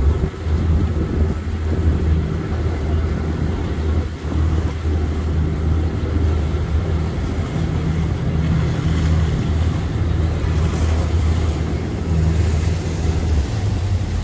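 Speedboat engine running at a steady drone while under way, with a rush of wind and water noise over it.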